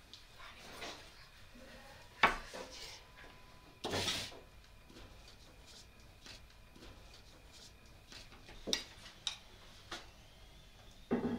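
A long wooden rolling pin knocking and rubbing against a wooden board and table as a thin sheet of hand-rolled dough is unrolled off it: a sharp wooden knock about two seconds in, then a longer scraping rub. Near the end come a few light clicks of a metal spoon against a clay bowl as oil is spooned over the dough.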